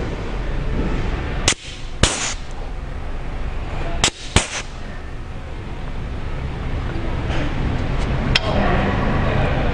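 Sharp knocks or clicks in pairs about half a second apart, twice in the first half and once more near the end, over a steady low hum.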